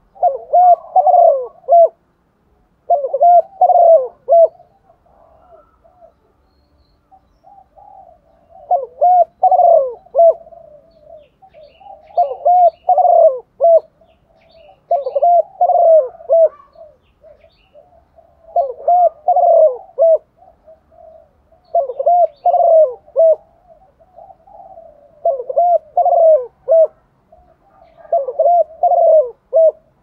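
Female spotted dove cooing: about nine repeated coo phrases, each about a second and a half long, coming roughly every three seconds with a longer pause after the second. This is a lure call meant to draw in wild male doves.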